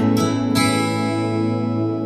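Background music on acoustic guitar: strummed chords that ring on and slowly fade.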